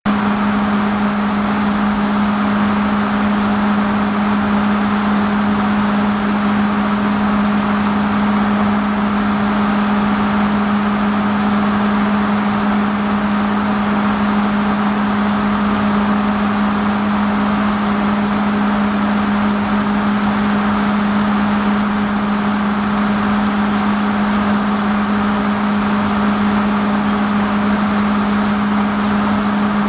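A motor running at a constant speed, a steady, unchanging drone with a strong low hum.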